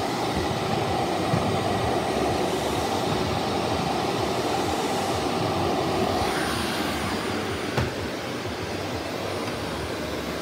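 Shark Navigator Lift-Away Professional vacuum cleaner running steadily, its tone shifting slightly about six and a half seconds in.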